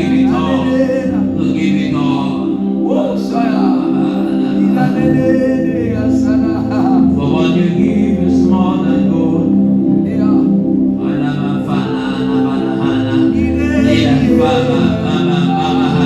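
Gospel worship music: sustained keyboard chords over a bass that shifts a few times, with a voice singing over them.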